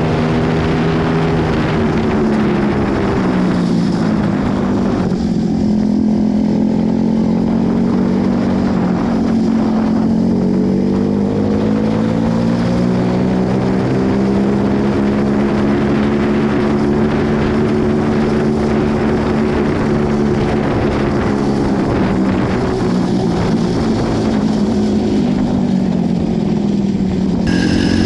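Homemade go-kart's engine running while driving, its pitch falling and rising with the throttle: it drops a few seconds in, climbs again, holds fairly steady through the middle and falls away near the end.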